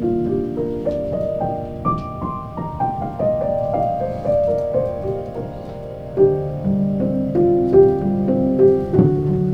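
Piano playing a run of rising notes, with deeper bass notes coming in about six seconds in.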